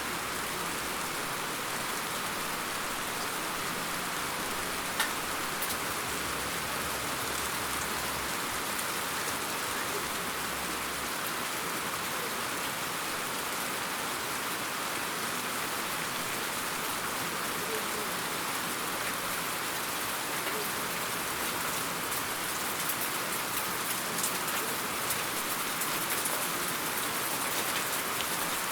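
Steady rain falling as an even hiss, with one sharp tick about five seconds in and a few scattered drip ticks near the end.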